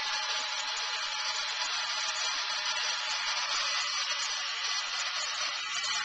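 Handheld hairdryer running steadily: a constant airy rush with a faint steady motor whine.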